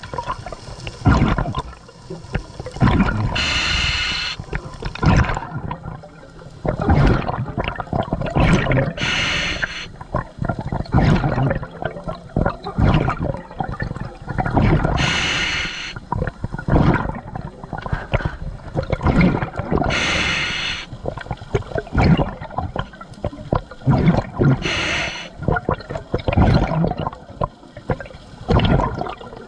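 A scuba diver breathing through a regulator underwater: a short hiss of inhaled air about every five seconds, and a rush of exhaust bubbles in between.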